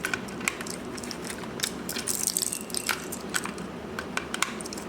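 Hands rummaging for and handling a USB flash drive: a run of small irregular clicks and ticks from plastic and metal, with a short rustle about two seconds in, over a steady low hum.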